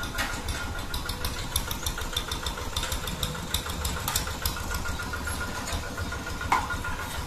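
A motor running steadily, a low even rumble, with scattered light clicks over it.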